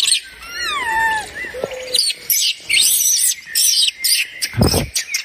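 Baby macaque crying: a run of high-pitched falling squeals, then many short, rapid shrill calls, with a brief low thud near the end.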